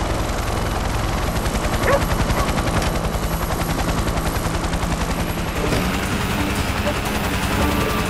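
Helicopter rotor beating in a rapid, steady chop, with a rushing noise over it.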